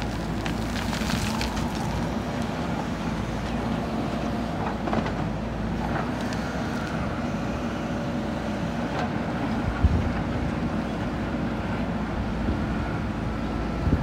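JCB 3DX backhoe loader's diesel engine running steadily under load as the backhoe digs and swings its bucket. A faint whine comes in from about six seconds in, and a few sharp knocks of bucket and stones sound, the loudest about ten seconds in.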